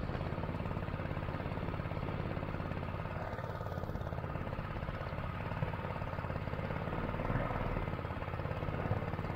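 Predator 212 single-cylinder four-stroke engine on a small swamp-runner mud motor, running steadily at a constant speed while pushing the boat.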